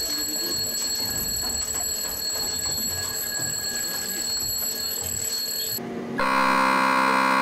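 Submarine compartment with a steady high-pitched whine and light clicks of switches and fittings being worked. About six seconds in, a loud, steady buzzing alarm starts: the boat's alarm signal calling battle stations for a missile launch.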